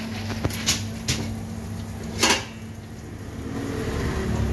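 Metal clinks and a short scrape on a large steel tantuni pan: a few sharp clinks in the first second, then a louder scrape a little past two seconds, over a steady low hum.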